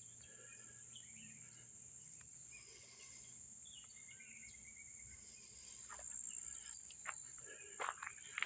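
Steady high-pitched drone of a summer insect chorus in woodland, with a few faint bird chirps; near the end a few short crackles, like footsteps in dry leaf litter.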